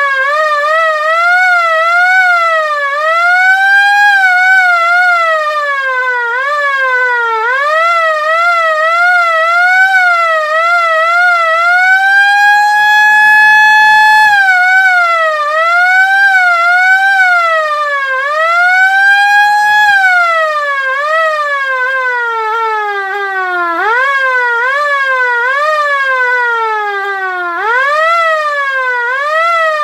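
LK-JDW105 air raid siren wailing. Its pitch rises and falls again and again in quick, uneven swoops, with a few deeper dips, and holds steady at its top note for about two seconds halfway through.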